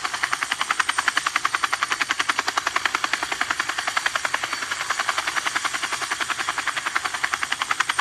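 Battery-powered toy helicopter running, its spinning rotor giving a rapid, steady chopping of about a dozen beats a second.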